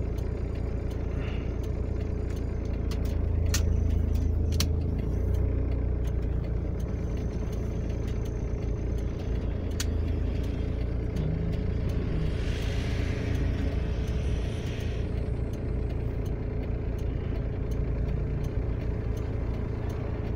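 Low steady rumble of a car idling, heard from inside the cabin, with traffic passing close outside. There are a few sharp clicks a few seconds in, and a vehicle passes with a rising then fading hiss in the second half.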